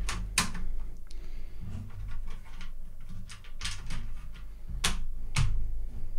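Blaster parts knocking and clicking together as a Picatinny rail is handled and lined up against the Nerf blaster's shell: a handful of sharp, separate clicks.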